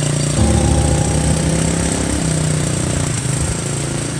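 Steady rain hiss under a low, buzzy drone that jumps between pitches every second or so.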